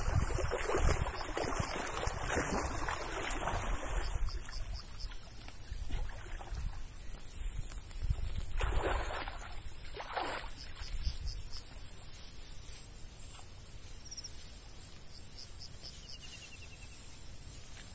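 A person swimming and wading through a shallow canal: water splashing and sloshing, strongest in the first few seconds, with two more splashes about nine and ten seconds in, then quieter.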